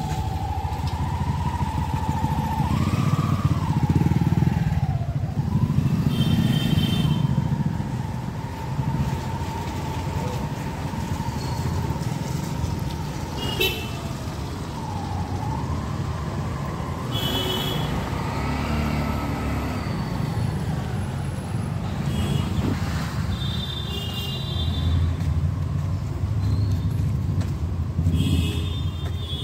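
City street traffic: vehicle engines running with a steady low rumble and a wavering whine, and several short horn honks scattered throughout.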